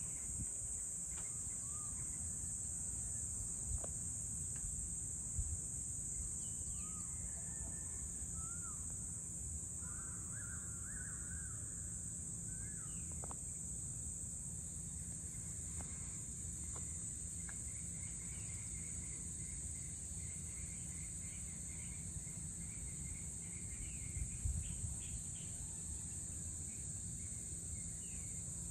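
Dusk ambience: a steady high-pitched chorus of insects, with birds chirping here and there in the first half and a quick run of repeated short notes through the second half, over a low background rumble. A few soft knocks stand out briefly, most clearly near the end.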